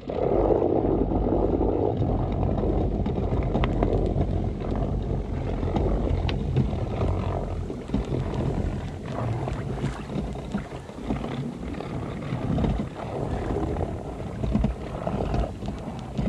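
Electric trolling motor running, its propeller churning water with a steady low hum, switched on abruptly at the start. The boat is not making headway in the shallows.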